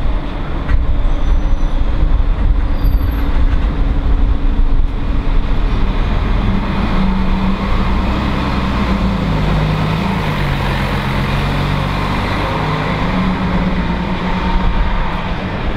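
Low-floor city bus pulling away from its stop and driving past, its engine rumbling. The engine note steps down and then back up in pitch partway through as the bus moves off.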